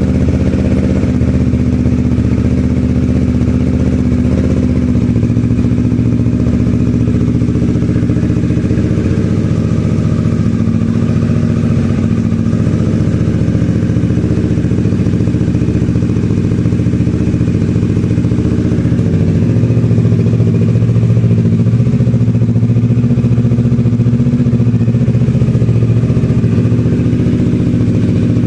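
Kawasaki Ninja 650's parallel-twin engine running steadily through a Yoshimura Alpha aftermarket exhaust, a loud, even low note that shifts slightly about five seconds in and gets a little louder near the last third.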